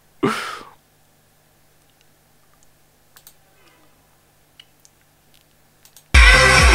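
A short breathy exhale, then a few faint computer-mouse clicks over quiet room tone. About six seconds in, loud electronic music with heavy bass starts abruptly from the video clip that has just been set playing.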